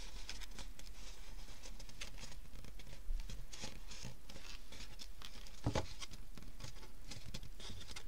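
Folded cardstock box handled on a work mat: fingers rub and press along its paper sides with soft rustling and scraping. There are light taps about three and six seconds in.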